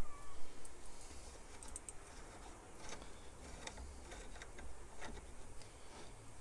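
Scattered light metal clicks and taps of the hand feed lever and its pivot parts being fitted to the cross slide of an Atlas 10-inch lathe, with a few louder knocks in the first half second.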